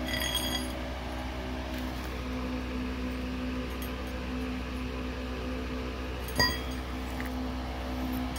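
Steel axle tubes and brackets clinking as they are handled: a short ringing clink near the start and a sharper, louder clink about six and a half seconds in, over a steady background hum.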